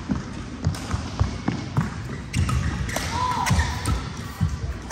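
Badminton doubles play on an indoor court: irregular sharp hits and thudding footfalls, with a short shoe squeak about three seconds in.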